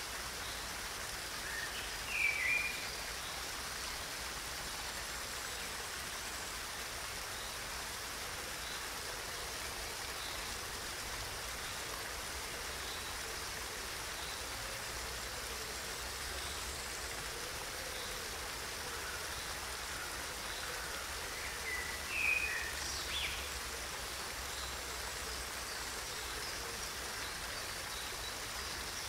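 Steady rushing and splashing of a small waterfall cascading over rocks into a stream. A bird gives a couple of short chirps about two seconds in and again about twenty seconds later.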